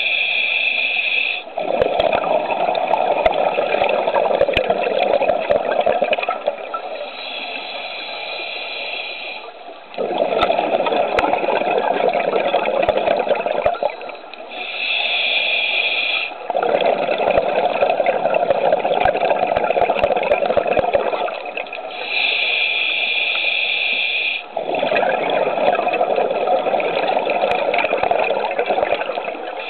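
Scuba diver breathing through a regulator underwater: a short inhale through the regulator, then a longer rush of exhaust bubbles. The cycle repeats about every seven seconds, four breaths in all.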